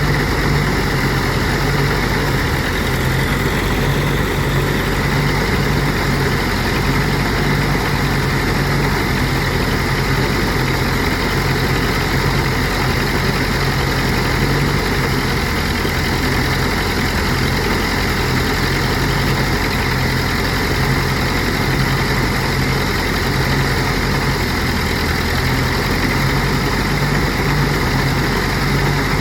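Engine-driven rice threshing machine running steadily while it threshes rice, a constant low engine hum under an even rushing noise.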